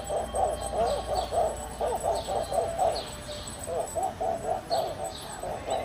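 Animated musical plush puppy toy playing its tune through its built-in speaker: a quick run of short, high, pitched notes.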